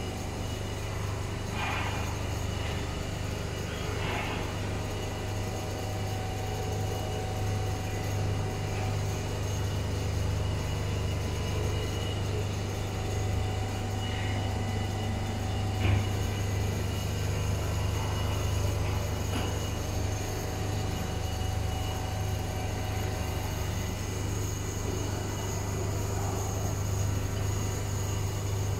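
Richpeace computerized quilting machine running as its head stitches a quilt, a steady low mechanical hum, with one brief knock about halfway through.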